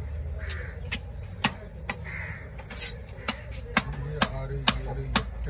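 Long fish-cutting knife chopping a large fish into steak pieces on a wooden log block: a series of sharp chops, about two a second over the second half. Two crow calls sound in the background early on.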